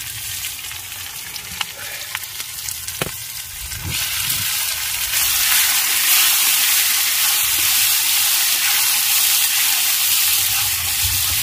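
Curry of boiled snails and tomato sizzling as it fries. The sizzle is steady and grows louder about four seconds in, with a few light knocks before that.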